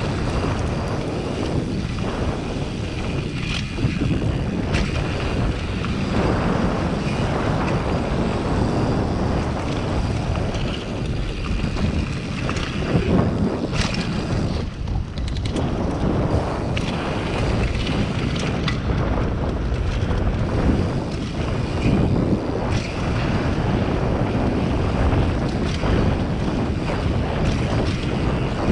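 Mountain bike descending fast on a dirt forest trail: steady wind buffeting the microphone over the rumble of tyres on dirt, with a few sharp knocks as the bike hits bumps.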